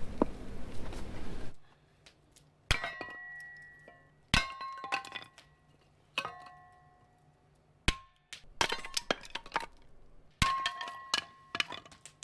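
A series of hard, sharp knocks, about five main strikes spaced a second and a half to two seconds apart with lighter clicks between, each leaving a short ringing tone like struck hard wood or metal.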